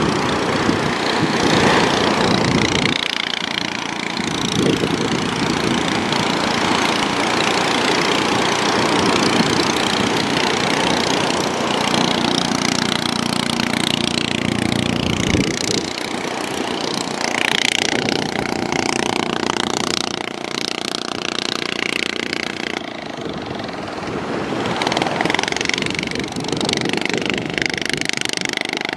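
Outboard motor of a small fishing boat running as the boat rides the surf in to the beach, with waves breaking and washing around it. The engine's pitch shifts a few times partway through.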